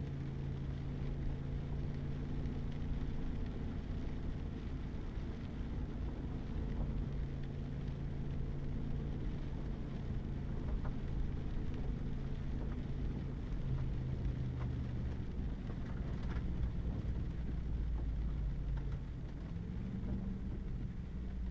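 Pickup truck engine running steadily, heard from inside the cab, over a low rumble of tyres on a wet, rutted dirt road. The engine note shifts about two-thirds through and rises near the end.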